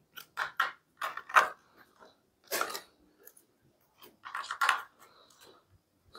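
Short plastic clicks and rattles from a 5-way lever-type push-in connector (Wago-style) being handled and pressed onto its plastic mount, in a few quick clusters with quiet gaps between.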